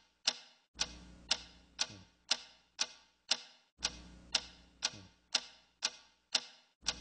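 Clock ticking steadily, about two ticks a second.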